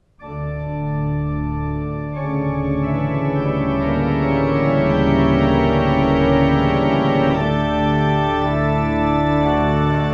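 Organ music playing sustained chords, starting just after the beginning, with the chord changing about two seconds in and again around seven seconds in.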